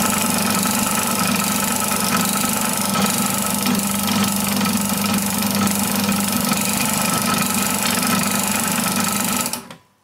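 Benchtop drill press motor running steadily, spinning a roll-crimping die down onto a plastic shotshell hull to roll-crimp its mouth. It stops near the end.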